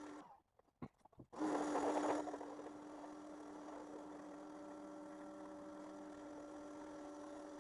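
Electric pressure washer running with a steady hum. After a short drop-out near the start, a louder hiss of spray comes in for about a second, then the hum carries on evenly.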